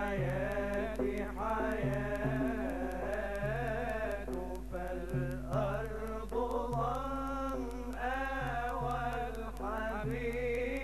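Male voices singing an Arabic devotional muwashshah together, in long ornamented melodic lines that waver and slide in pitch, over a low tone that comes and goes and a steady electrical hum.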